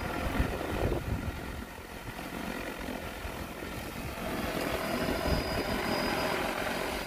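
Rotors of a DJI Agras T20P agricultural spraying drone running with a steady, many-toned hum. The hum grows louder about four seconds in, and a thin high whine joins it briefly.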